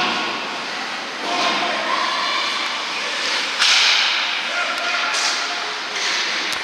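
Ice hockey game on an indoor rink: skates cutting and scraping on the ice and sticks working the puck, with a sudden loud scrape about three and a half seconds in, over indistinct voices echoing in the rink.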